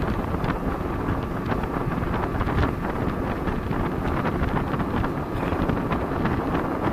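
Steady wind buffeting the microphone of a speedboat under way, mixed with the rush of the hull through the water and many brief splashes or gusts.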